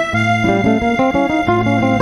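Background music: an electronic keyboard melody in quick, even notes over a steady bass line.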